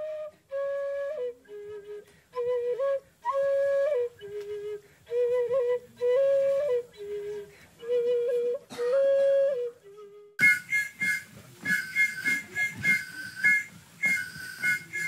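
A wooden flute playing a simple tune of separate held notes, each about half a second to a second long, moving between two or three pitches. About ten seconds in it breaks off, and a busier sound of quick repeated high whistling notes over many clicks takes over.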